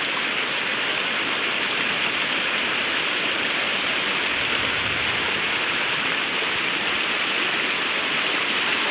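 Floodwater rushing in a steady, unbroken stream.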